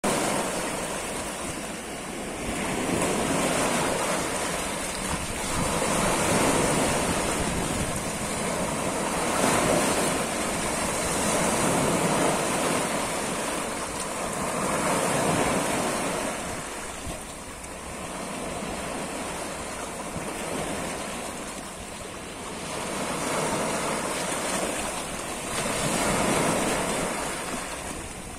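Small lake waves breaking and washing over a rocky, pebbly shore, the surge swelling and easing about every three seconds.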